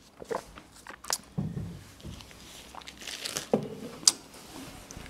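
A man taking sips of water from a glass, then scattered light knocks and paper rustling as he handles an open Bible on a wooden lectern.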